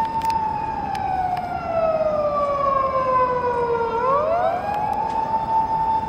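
Ambulance siren holding a steady high tone, then sliding slowly down in pitch for about four seconds and climbing quickly back up to the same steady tone.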